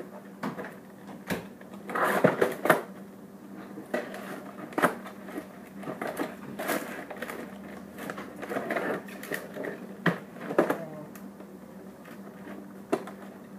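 Flashlight packaging being opened by hand: irregular crinkling, rustling and sharp clicks and taps as the package is pulled and torn open, over a steady low hum.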